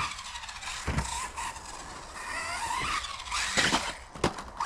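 Brushless electric motor of a Hobao Hyper 10 TT 2.0 RC truggy whining as it accelerates and slows, its pitch rising and falling repeatedly, with a few sharp knocks.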